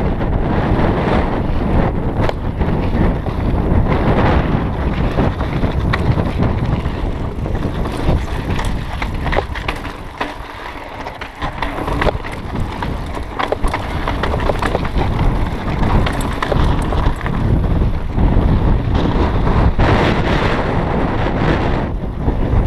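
Wind buffeting the microphone of a mountain bike rider's point-of-view camera during a fast descent, over mountain bike tyres rolling on loose dirt and gravel and frequent rattling clicks from the bike. The wind eases for a couple of seconds about ten seconds in, where the trail turns rocky and slower.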